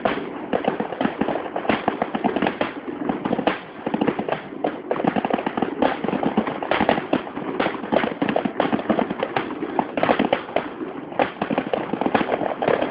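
Fireworks display: a dense, continuous barrage of bangs and crackles, with a brief lull a little over three seconds in.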